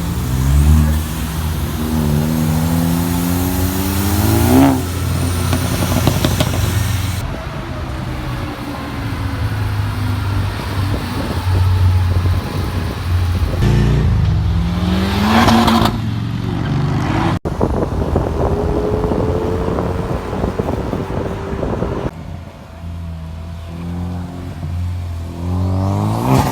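Car engines revving hard as cars accelerate away, in a run of separate clips. The engine pitch climbs steeply to a peak about four and a half seconds in and again about fifteen seconds in, and starts rising again near the end.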